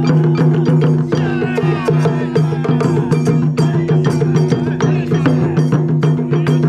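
Japanese taiko drum ensemble playing, a dense run of rapid, sharp strikes over a steady low hum.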